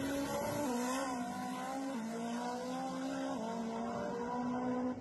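Drag car's engine at full throttle during a run down the strip, a steady high-revving tone that steps down in pitch three times, at the gear changes.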